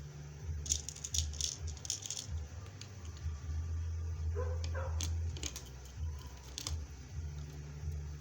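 Small hard clicks and rattles from bead-setting work with a hand-press rivet machine: a quick run of rattling clicks in the first two seconds, then a few single clicks, over a steady low hum.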